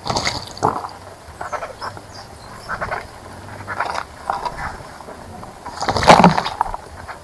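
A small bird splashing in a bird bath: irregular short bursts of splashing water and fluttering wings, the loudest about six seconds in.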